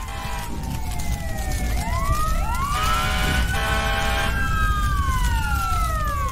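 Emergency vehicle sirens wailing in slow overlapping rises and falls, with two blasts of a horn in the middle, over a steady low engine rumble.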